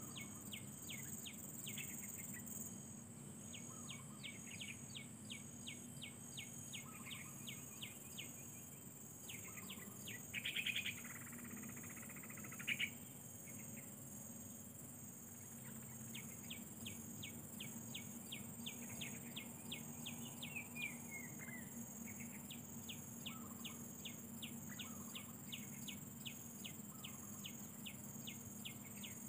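Birds chirping in quick, evenly repeated notes over a steady high drone of insects. A louder flurry of calls comes about ten seconds in, then a single sharp call. A short falling call follows near the twenty-second mark.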